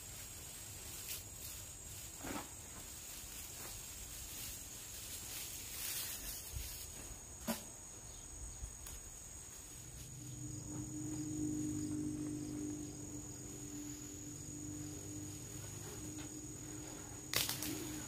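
Insects trilling steadily in a high, thin tone, with a few brief handling clicks. About ten seconds in, a low steady hum joins them.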